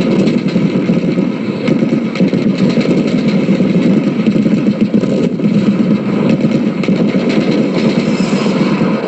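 Comic war-machine sound effect for radio: a steady, rattling, engine-like mechanical rumble.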